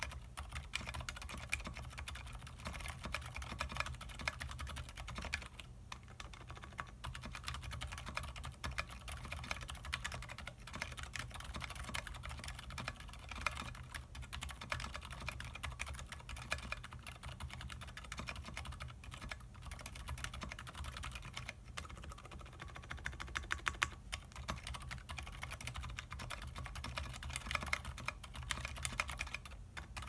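Fast continuous typing on a KBDFans Tofu 60% mechanical keyboard: its PCB is mounted on rubber o-rings, it has a carbon fiber plate, unmodded Aliaz 60g silent tactile switches and GMK keycaps. Quick, overlapping keystroke clacks with a few short pauses, picked up by a phone microphone.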